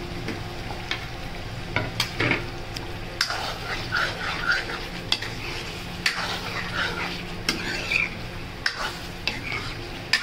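Stirring paneer cubes into thick masala gravy in a metal kadhai, the utensil scraping and clicking irregularly against the pan while the masala sizzles.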